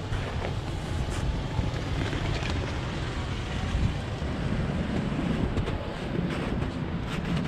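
Off-road vehicle's engine running steadily, a low rumble mixed with wind noise on the microphone and a few light knocks near the end.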